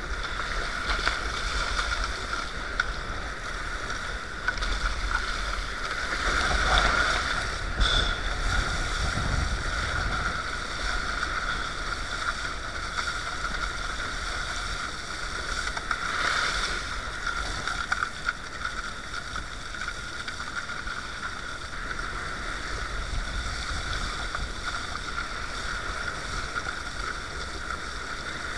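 Sea kayak pushing through choppy waves, with water splashing and rushing along the hull and wind buffeting the deck-mounted camera's microphone as a low rumble. The noise is steady, with louder surges of splashing about 7 and 16 seconds in.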